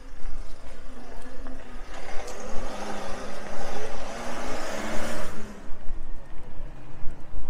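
A road vehicle passing on a town street, its sound swelling about two seconds in and dying away by about five and a half seconds, over a steady low street rumble.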